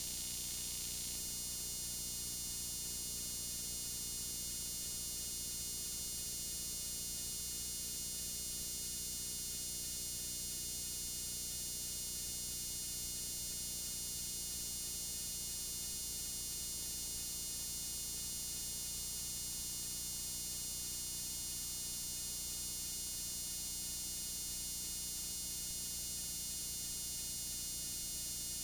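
Steady electrical hum and buzz with no other sound, the line noise of a blank stretch of an old video transfer. A faint hiss in the upper range drops away about a second in.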